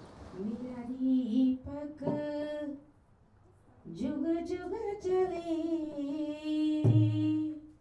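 A woman's voice singing two slow phrases with long held notes, the second starting about four seconds in. A sharp click sounds near the end.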